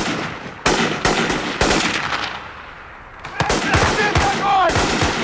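Gunfire in rapid bursts: a string of shots over the first two seconds, a short lull, then more shots resume under a man's shouting in the second half.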